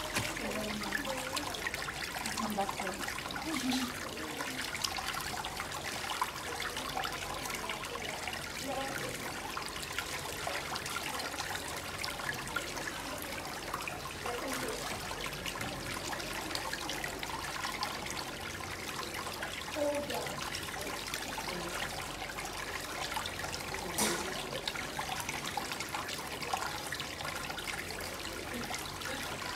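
Pedicure spa foot basin running, its whirlpool churning the water in a steady rush.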